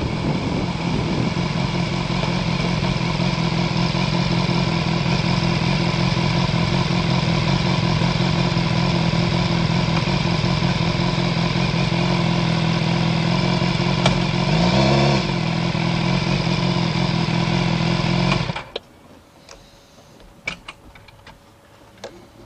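Motorcycle engine running steadily at low revs as the bike rolls to a stop, with a short throttle blip about two-thirds of the way in. The engine then cuts off suddenly, switched off, leaving only a few faint clicks.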